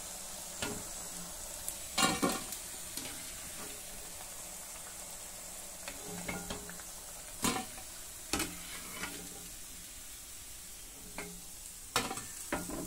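Batter-coated cauliflower florets deep-frying in a kadai of hot oil, a steady sizzle. A few short knocks and scrapes of a metal slotted spoon against the pan come through it as the cooked pieces are lifted out.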